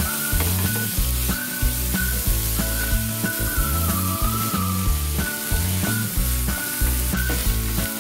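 Chopped onions and ginger-garlic paste sizzling in oil in a nonstick frying pan as they are stirred with a wooden spatula, with background music running underneath.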